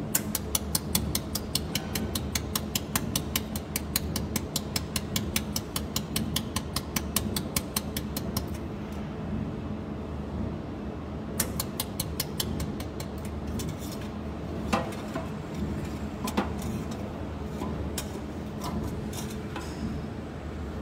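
Desktop jewelry laser welder (OPT-JW200) firing pulses along a metal plate's seam: sharp snaps at about five a second for roughly eight seconds, then a shorter run and a few scattered single snaps, over a steady low hum.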